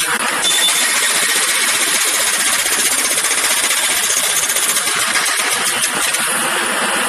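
Jackhammer hammering continuously, a loud, steady stream of rapid blows too fast to count.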